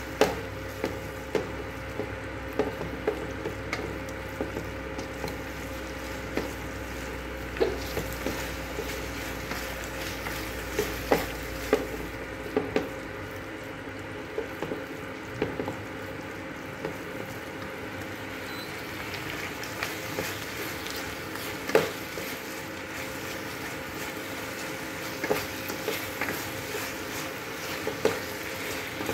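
Grated bottle gourd halwa with cashews, almonds and raisins frying in a nonstick kadhai while a wooden spatula stirs it, with a steady sizzle and irregular scrapes and knocks of the spatula against the pan.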